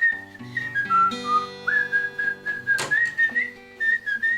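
Background music: a whistled melody over plucked acoustic guitar. A brief sharp burst of noise cuts across it about two and a half seconds in.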